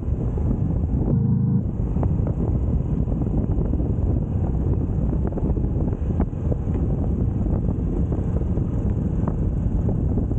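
Wind buffeting the microphone over the Moto Guzzi V85TT's air-cooled V-twin engine running while the bike is ridden, a steady low rumble with a few scattered ticks.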